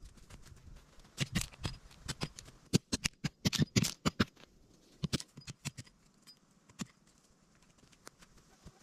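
A rapid, irregular run of sharp clicks and snaps, thickest in the first two-thirds and thinning to a few scattered ones near the end.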